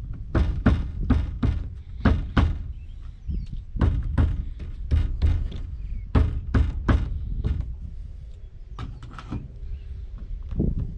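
Irregular thumps and knocks, about two a second, as a rubber windshield gasket is pressed and knocked into a truck cab's windshield opening; they thin out near the end.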